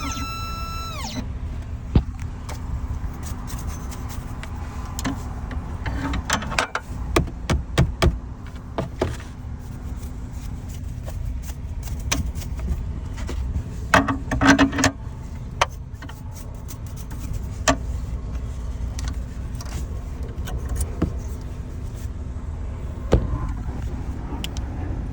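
Scattered sharp clicks and light knocks, most of them about 6 to 9 seconds in and again around 14 to 15 seconds, over a steady low rumble with a faint hum.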